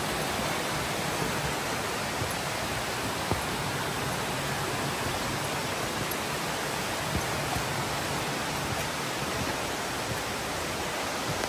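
Steady rushing of a waterfall: an even, unbroken roar of falling water.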